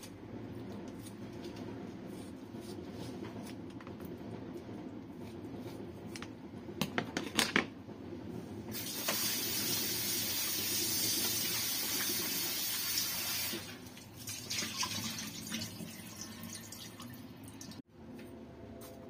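Kitchen scissors snip a few times. About nine seconds in, a kitchen tap runs into a sink for roughly five seconds and shuts off, followed by softer, uneven splashing.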